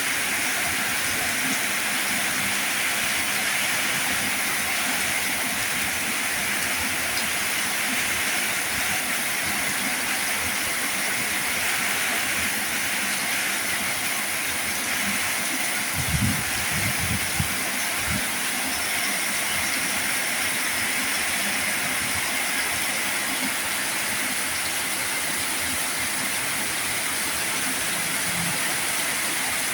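Heavy rain falling, a steady even hiss. A few dull low thumps come about halfway through.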